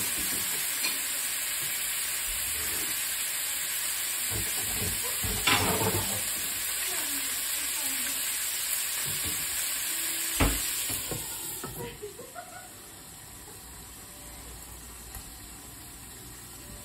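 Boiled, chilled pelmeni sizzling steadily in hot butter and vegetable oil in a frying pan. There is a clatter about five seconds in, then a sharp knock and a few rattles as the glass lid goes on. After that the sizzle is quieter and muffled under the lid.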